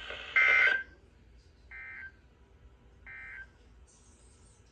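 Weather radio sounding the EAS end-of-message code after a severe thunderstorm warning: three short, buzzy digital data bursts about a second and a half apart, the first loud and the next two much fainter. The static hiss of the broadcast cuts off after the first burst.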